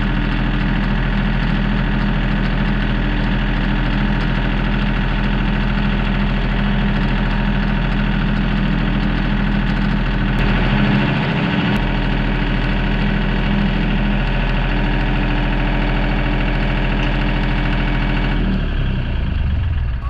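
Engine of a small farm utility vehicle running steadily as it drives, with an even low hum. It eases off near the end.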